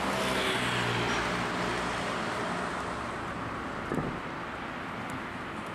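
Road traffic: a motor vehicle's engine running with a steady low tone that fades away over the first two seconds or so, over a constant rush of road noise, with one short knock about four seconds in.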